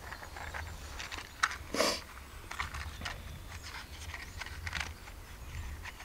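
Dry twigs and forest litter crackling and snapping under handling or footsteps, with one louder crunch about two seconds in.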